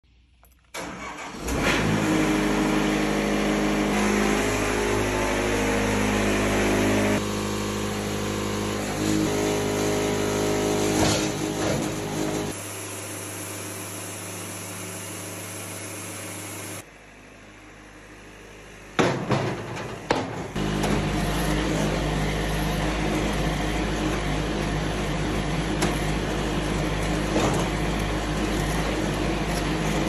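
Wood-Mizer Super70 sawmill's engine started with the ignition key about a second in, then running steadily, its sound shifting in level several times as the mill's hydraulics work. A few loud knocks come about two-thirds of the way through, then the engine runs on steadily.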